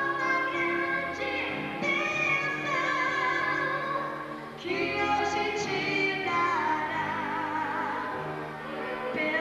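A woman singing a gospel song over instrumental backing, with long held notes and vibrato. One phrase fades about halfway through and a new one starts.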